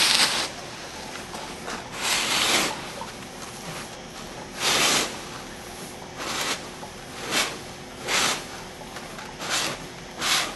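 A hand scooping and stirring granular incubation substrate in a styrofoam box: a rustling, gritty scrape about every one to two seconds.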